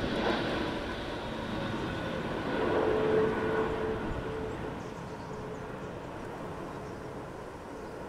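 Airbus A320neo's CFM LEAP-1A turbofan engines on final approach: a steady jet rush with a faint whine, slowly fading as the airliner moves away.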